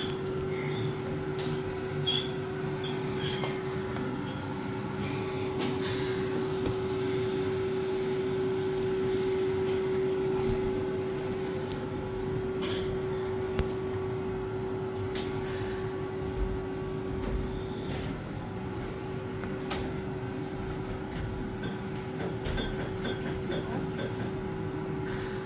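Steady machinery drone with a constant mid-pitched hum running through it and scattered faint clicks and knocks.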